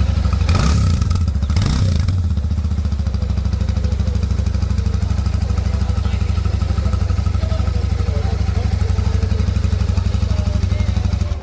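Royal Enfield Shotgun 650's 648 cc parallel-twin engine on its stock exhaust, idling steadily after two quick throttle blips about half a second and a second and a half in.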